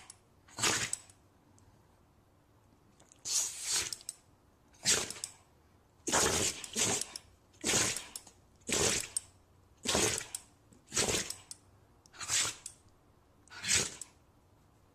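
An animal sneezing over and over, about once a second, with some sneezes coming in quick pairs.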